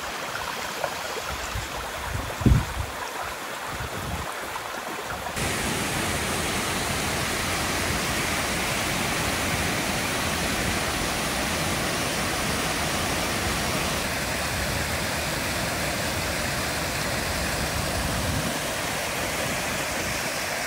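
Rushing water of small waterfalls and a stream, a steady noise that jumps louder and fuller about five seconds in. A short low thump comes about two and a half seconds in.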